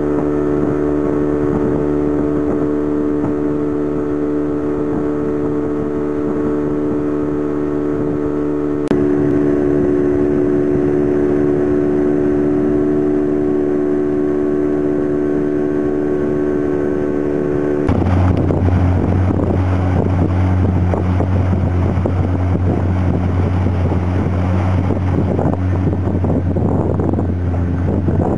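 Motorboat engine running steadily at constant speed. The sound changes abruptly about nine seconds in and again about eighteen seconds in. The last part is a deeper drone with rushing wind and water noise.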